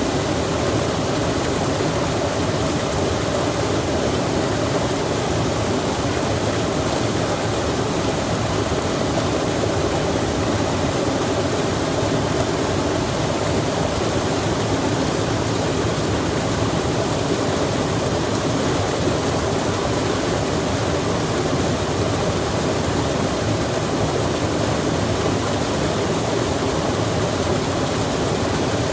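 Running water rushing steadily and evenly, like a mountain stream or cascade, without a break.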